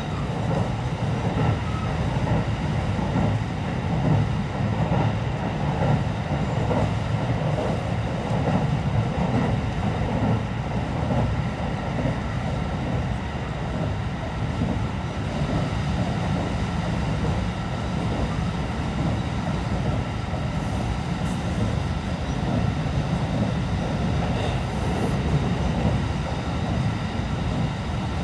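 Steady running noise of the Rapid Marine Liner electric train, heard inside the passenger carriage: a dense, even rumble of wheels on rail.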